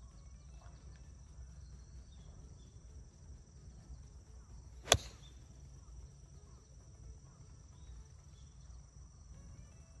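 A pitching wedge striking a golf ball on a full approach shot: one sharp click about five seconds in, over a steady high chirring of insects.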